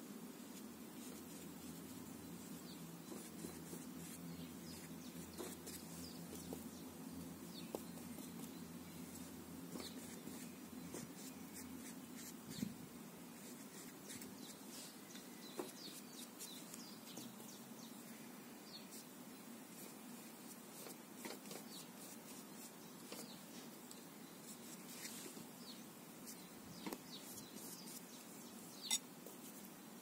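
Quiet garden ambience: faint scattered bird chirps over a low steady hum, with a few small soft taps now and then.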